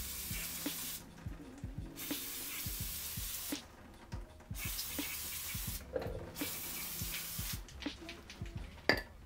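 Aerosol brake cleaner spraying onto a brake caliper in four bursts of about one to one and a half seconds each, with short pauses between. A few sharp knocks near the end.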